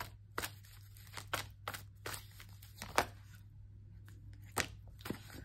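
A deck of oracle cards being shuffled in the hands: a run of soft, irregular card snaps and slaps, over a faint steady low hum.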